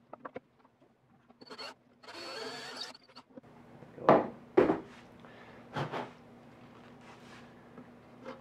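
Cordless drill spinning briefly twice, a quick burst then a run of about a second with a steady high whine. A few seconds in come two loud knocks, then another.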